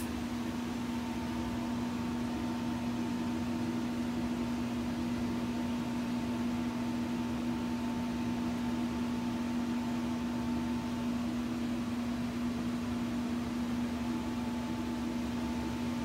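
Dayton 1TDU2 blower of a homemade laminar flow hood running, pushing air through HEPA filters: a steady low hum over an even rush of air.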